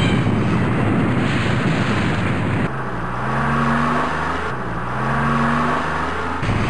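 A loud, dense rumbling noise, then a motor revving up twice, its pitch rising each time, about three seconds in and again near the end.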